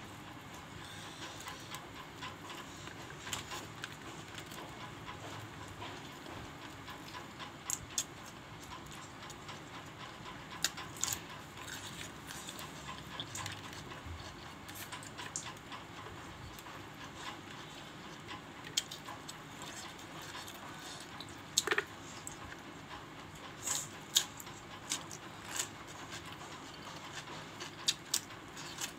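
Eating rice by hand: fingers mixing food on a plate and chewing, heard as scattered short clicks and smacks over a steady faint hiss. A slice of raw cucumber is bitten near the end.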